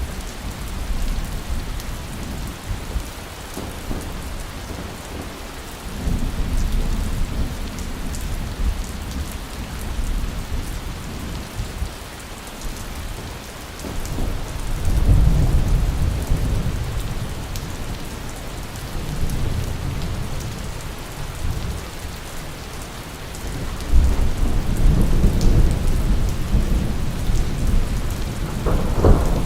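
Steady heavy rain hissing, with rolls of thunder rumbling in three times, the loudest starting sharply about 24 seconds in.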